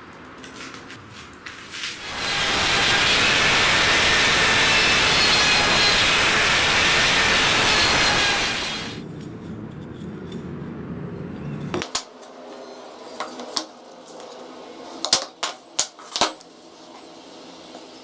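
Electric power tool running for about seven seconds with a high whine, cutting wood for a knife handle; it starts about two seconds in and winds down. Afterwards a few sharp knocks and clicks of wood and tools handled on a workbench.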